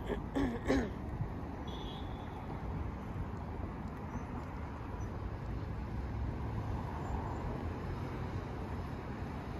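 Steady road traffic: cars driving past on a city street, a continuous low rumble of engines and tyres. Two short, louder sounds stand out in the first second.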